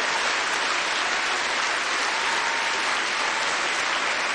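Large audience applauding steadily, a dense sustained round of clapping.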